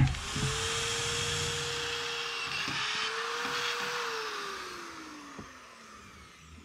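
Corded electric drill with a 3/8-inch bit running at speed, cutting through 1/8-inch steel. About four seconds in the trigger is let go and the motor winds down, its whine falling in pitch and fading over about two seconds.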